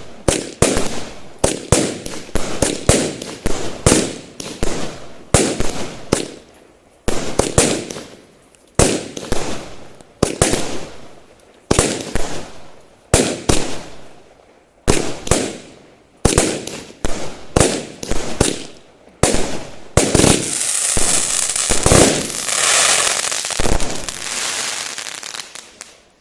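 Cheap consumer fireworks going off: a long run of sharp bangs, one every half second to a second, each trailing away. About twenty seconds in, a dense crackling takes over and dies away near the end.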